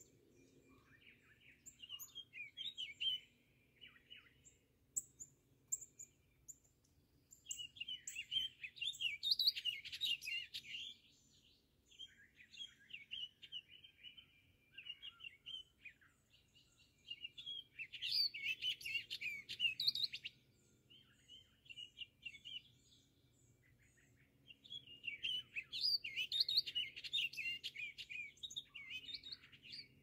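Songbirds singing in a spring dawn chorus. A rapid warbling song comes in loud bouts of two to four seconds, roughly every eight seconds, with shorter phrases and thin high notes in between.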